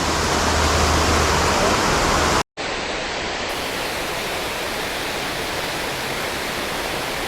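Water pouring over a creek spillway, a steady rushing. It cuts out for a moment about two and a half seconds in, then carries on.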